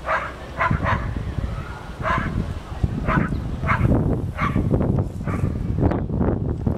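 A dog barking: about seven short barks at irregular intervals over the first five seconds, over a low steady rumble.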